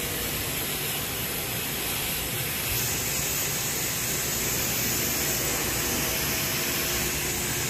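Steady rushing hiss over a low rumble from running equipment in a locomotive shop, turning brighter and hissier about three seconds in.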